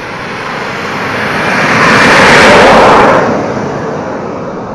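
Small turbine engine of a radio-controlled model jet, a rushing jet noise that swells as the plane passes close by. It peaks about two and a half seconds in, then drops in pitch and fades away.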